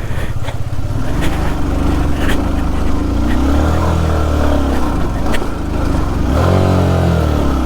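Honda CBR150R's single-cylinder engine revving under load on a stony off-road climb. Its pitch rises and falls back twice, with scattered sharp knocks from the wheels and bike going over rocks.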